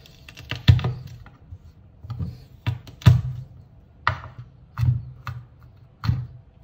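Chef's knife chopping garlic cloves on a wooden cutting board: about eight separate, irregularly spaced knocks of the blade against the wood.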